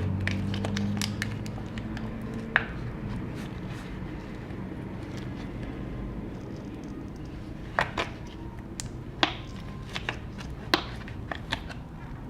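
Scattered light clicks and taps from tools and hands working on a MacBook Pro's battery cells and plastic battery frame, a few sharp ones close together in the second half. A low hum fades out over the first couple of seconds.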